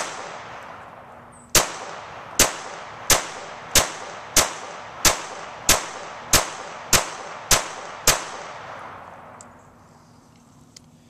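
Twelve shots from a Walther PPQ M2 .22 LR pistol firing CCI Stinger 32-grain hollow points: one shot, a pause of about a second and a half, then eleven more in a steady string about two thirds of a second apart. Each crack is followed by a ringing echo that fades out about two seconds after the last shot.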